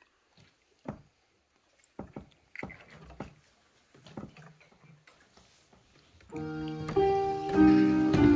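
A few faint knocks and small handling sounds, then about six seconds in a keyboard instrument starts playing slow, held chords.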